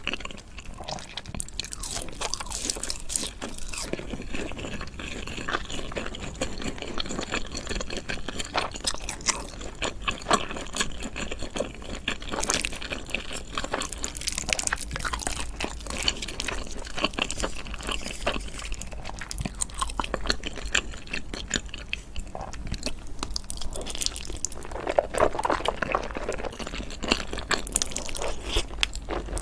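Close-miked eating ASMR: a person biting and chewing, with frequent irregular crunches and clicks.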